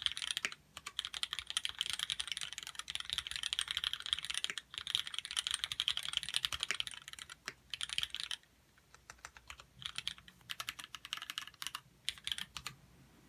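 Typing on a Duck TC-V3 custom mechanical keyboard with Cherry MX Black linear switches. Rapid, continuous keystrokes thin out after about eight seconds into short bursts of keys, which stop just before the end.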